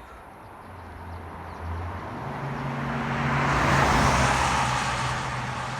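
A motor vehicle passing by on the highway: engine hum and tyre noise growing louder to a peak about four seconds in, then fading away.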